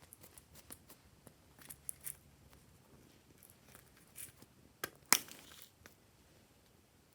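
Glossy slime being handled by hand, making scattered small sticky clicks and crackles, with one sharp louder pop about five seconds in.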